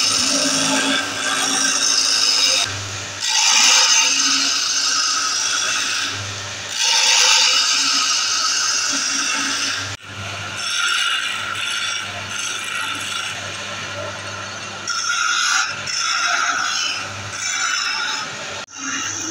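Wood lathe running with a turning chisel cutting the spinning wooden blank: a scraping cut that comes and goes in passes over the lathe's steady hum, with a brief break about halfway.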